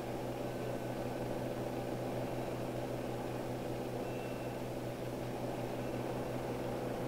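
A steady low hum with hiss, unchanging throughout: the background noise of an old film soundtrack.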